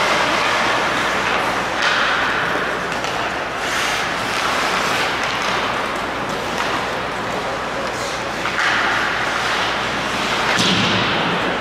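Ice hockey play in an indoor rink: skates scraping and carving on the ice, with several sharp knocks of sticks, puck and boards that ring on briefly in the arena.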